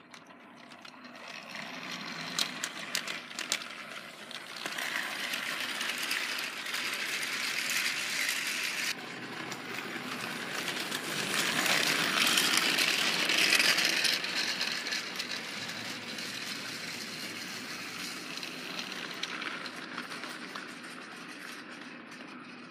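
Battery-powered Trackmaster Revolution Gordon toy engine running along plastic track, a rattling whir of its motor and gears. It grows louder toward the middle as it comes close, then fades as it moves away, with a few sharp clicks about two to three seconds in.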